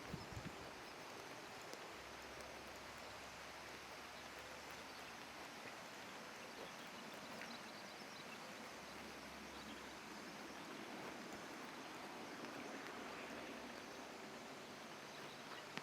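Steady outdoor background hiss like running water, with a few faint clicks near the start; no clear bird call stands out.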